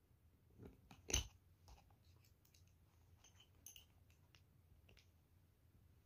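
Faint metallic clicks and taps of two keys being fitted against a small padlock's shackle, with one sharper click about a second in.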